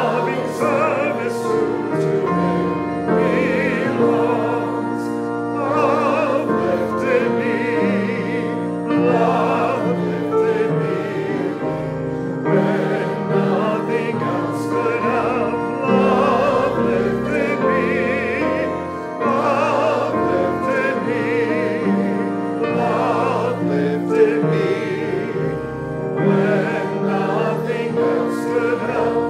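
Voices singing a hymn over instrumental accompaniment, in sustained phrases of a few seconds each.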